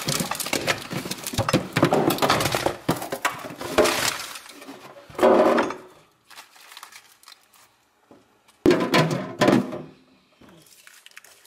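Plastic food packages rustling and crinkling as they are pulled out of a fridge crisper drawer, with sharp knocks as packages drop onto a wooden floor. The rustling is dense for the first five seconds, then comes in short bursts with quiet gaps.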